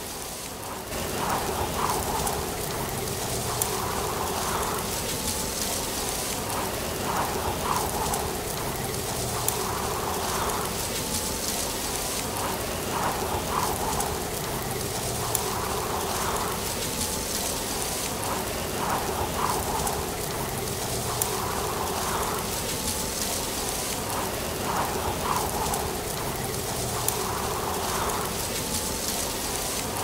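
Tree leaves rustling in the wind: a steady, rain-like hiss that swells about every three seconds, over a low steady hum.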